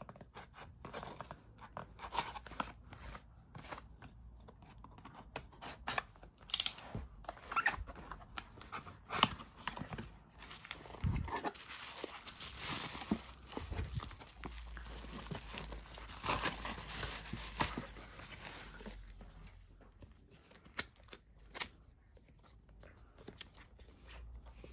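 Hands unboxing a cardboard parcel: a utility knife slitting the tape, cardboard flaps rustling, then bubble wrap crinkling and tearing as it is pulled off, with many short clicks and scrapes throughout.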